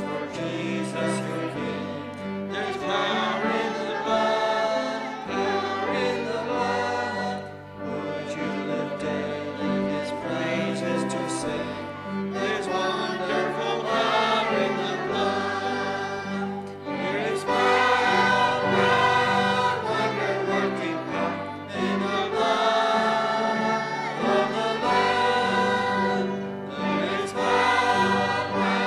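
A group of adults and children singing a hymn together, with piano accompaniment.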